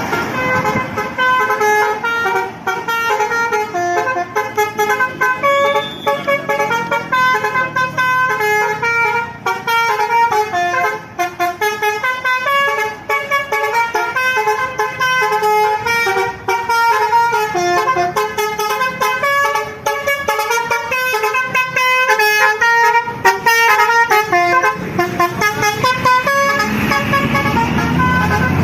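Bus telolet horn, the multi-tone musical horn of Indonesian coaches, playing a long, fast tune of clear stepped notes. Near the end the tune gives way to a broader, steadier rumble.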